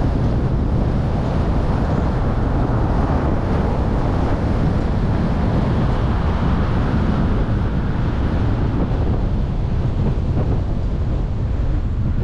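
Steady road noise from a moving car: an even, low rumble of tyres and wind rush with no distinct tones, the higher hiss thinning a little in the last few seconds.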